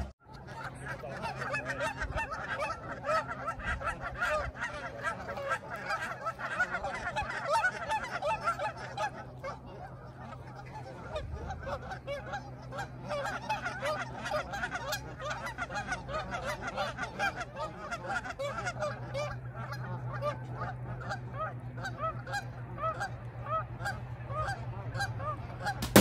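A large flock of Canada geese honking, many short calls overlapping into a continuous chorus, over a steady low hum.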